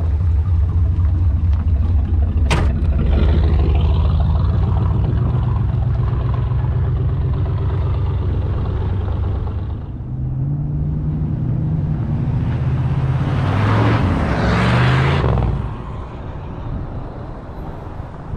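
1980 Pontiac Trans Am's turbocharged 4.9-litre V8 running steadily up close, with one sharp knock of a car door shutting about two and a half seconds in. From about ten seconds in the car drives up and past, its engine note rising as it accelerates, loudest around fourteen to fifteen seconds, then fading as it moves away.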